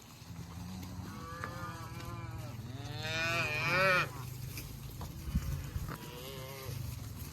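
Cattle mooing over a steady low rumble: two moos in the first four seconds, the second longer and louder, and a fainter one near the end.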